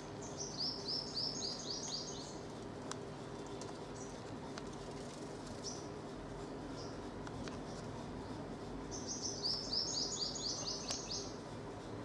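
Purple sunbird singing two quick, high-pitched trills, each a fast run of about nine sharp notes that each slide down in pitch. One trill comes near the start and the other about nine seconds later.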